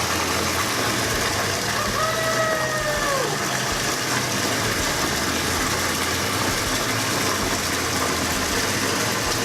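Bathtub faucet running hard, water gushing steadily into the tub as it fills. About two seconds in, a brief tone of about a second sounds over it and dips in pitch at its end.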